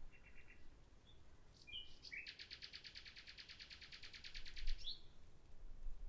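Common nightingale singing: a short burst of quick notes, a few separate notes, then a long rapid trill of one note repeated about a dozen times a second for over two seconds, closing with a quick higher note. A low rumble comes in near the end.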